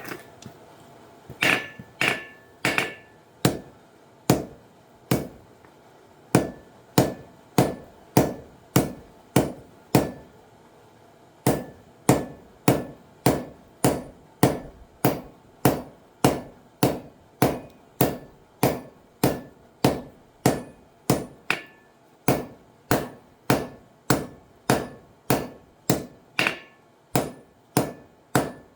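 Hammer blows on an anvil forging titanium, struck steadily at about one and a half blows a second, each with a short metallic ring. There is a brief pause about ten seconds in before the hammering resumes at the same pace.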